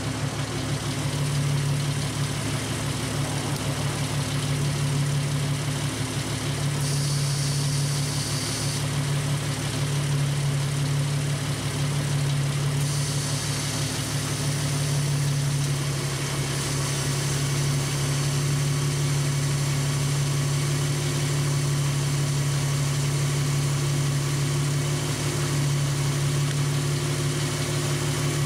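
Jeep YJ engine idling steadily at about 800–900 RPM while it drives the engine-mounted onboard air compressor filling a flat tyre.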